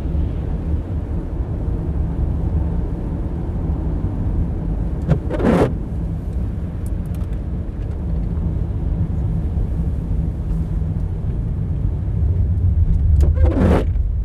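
Car cabin noise while driving on a snow-covered road: a steady low rumble of engine and tyres. The windshield wipers sweep twice, about five seconds in and again near the end.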